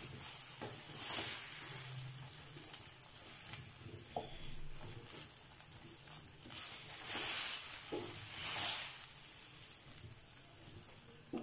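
Oil and spice masala sizzling in a steel pot as boiled chickpeas are stirred through with a wooden spatula; the sizzle swells with the stirring, loudest about seven to nine seconds in, with a few light scrapes of the spatula.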